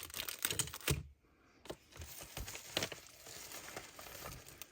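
Packaging crinkling and tearing as it is handled and opened: a cluster of crackly rustles in the first second, then, after a brief pause, steadier rustling with scattered crackles.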